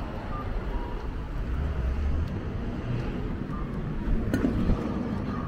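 City street ambience: a steady low rumble of traffic and wind on the microphone, with a single sharp click about four seconds in.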